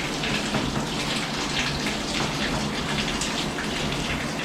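Running shower water rinsing shampoo out of a wet, thick-coated Australian Shepherd, splashing steadily into the bathtub.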